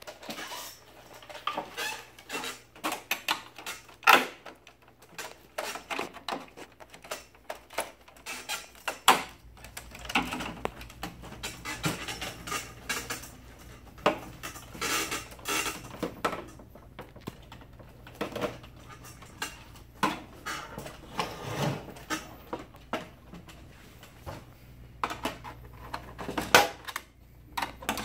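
Plastic HP laser printer covers clicking and knocking as they are pried and worked loose at their locking tabs with a metal screwdriver and pick. The clicks and taps come irregularly throughout. A faint low hum sets in about a third of the way through.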